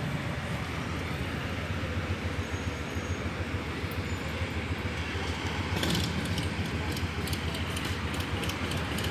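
Harley-Davidson V-twin engine running at low revs: a steady, low, pulsing rumble.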